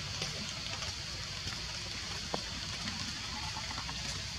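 Steady outdoor forest ambience: an even hiss with a faint tick about two seconds in.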